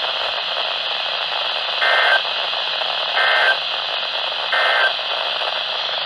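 NOAA weather radio receiver hissing with static, cut by three short buzzy data bursts about 1.4 s apart. These are the SAME digital end-of-message code that closes an Emergency Alert System broadcast.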